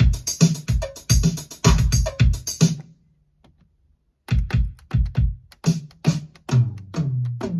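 Roland TR-707 drum machine, fitted with an expansion sound-bank EPROM, playing a drum pattern of low thumps and bright ticks. The pattern stops about three seconds in, with a few faint clicks in the gap. A second pattern starts about a second and a half later, with a low ringing drum hit near the end.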